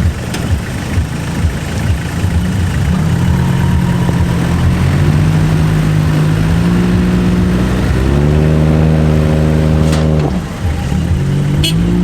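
Four-wheel-drive vehicle's engine revving under load, rising in pitch in steps and holding high for a couple of seconds before easing off about ten seconds in.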